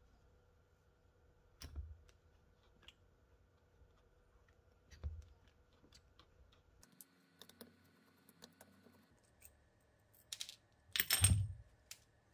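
Handling noise from a small metal V-twin model engine being turned over in the hands: scattered light clicks and taps, then a louder clatter with a dull knock near the end.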